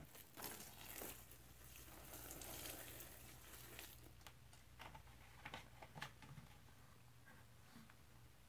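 Liquid cleaner trickling from a bottle onto Scrub Daddy sponges in a plastic bucket: a faint, soft pattering hiss that stops about four seconds in, followed by a few small clicks.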